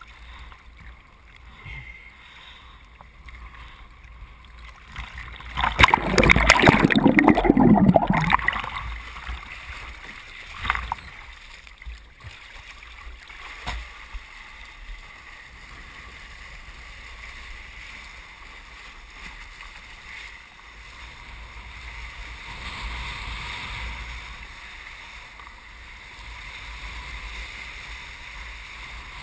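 Lake water sloshing and splashing around a windsurfer and the rig during a waterstart, with a loud rush of splashing water from about six to eight seconds in and a few short knocks soon after. Near the end it becomes a steadier rush of water as the board gets under way.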